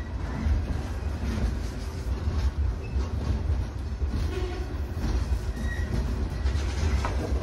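Freight train rolling on the rails: a steady low rumble with irregular clanks and rattles from the cars and wheels.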